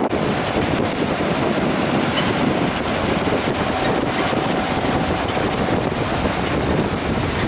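Wind buffeting the microphone, a steady rushing noise.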